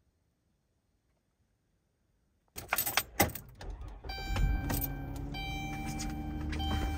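About two and a half seconds in, keys jangle and the van door clicks. A second or so later the minivan's engine starts and runs steadily, while a high electronic chime repeats over it.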